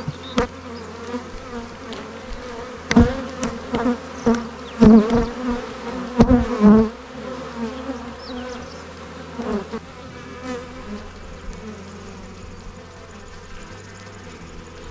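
Honeybee colony humming steadily in an open hive. A cluster of loud knocks and handling noises comes between about three and seven seconds in.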